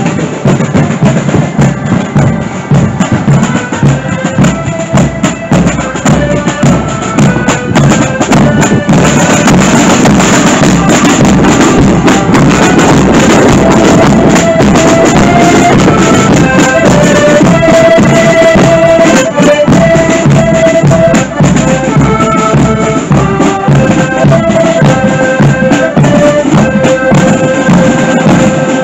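Accordion marching band playing a march: accordions carry the melody in held notes over a steady beat of drum strokes.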